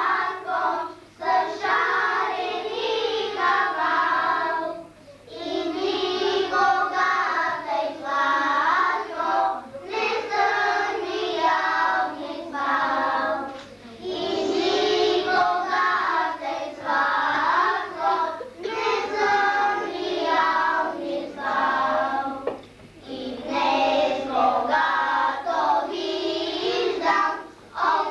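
A class of first-grade children singing a song together in chorus, phrase after phrase with short breaks for breath.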